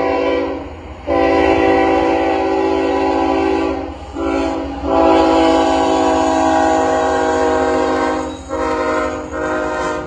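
Air horn of a BNSF GE ES44C4 locomotive leading a freight train, sounded for a grade crossing in long blasts broken by short gaps. It stops near the end as the locomotive reaches the crossing.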